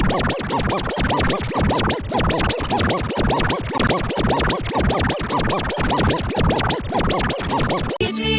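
Sparta-remix-style electronic music: a short sound chopped into a fast stutter of about six repeats a second, each repeat sliding up and down in pitch. Near the end it drops out for an instant and a different, melodic section starts.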